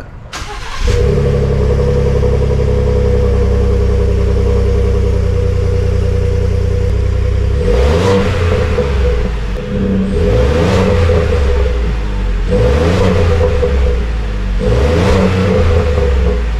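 Ford F-150's 3.5 L EcoBoost twin-turbo V6 idling through its exhaust, then revved four times from about halfway, each rev rising and falling back to idle.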